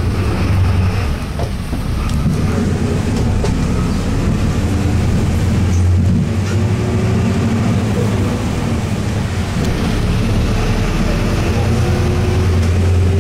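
Tour bus engine and road noise heard from inside the moving bus: a steady low drone with a faint whine slowly rising in pitch as it gathers speed.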